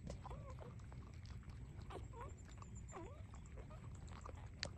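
Three-day-old puppies squeaking faintly while nursing: short high squeaks that bend up and down, several times, among soft clicks, with one sharp click near the end.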